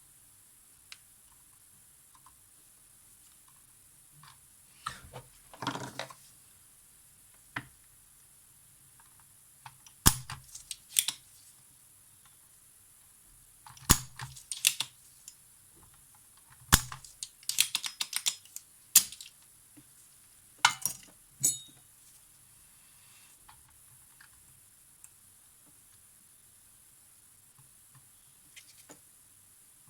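Small tools and parts handled on a hard work surface: irregular clicks, taps and light knocks, with a quick run of clicks in the middle.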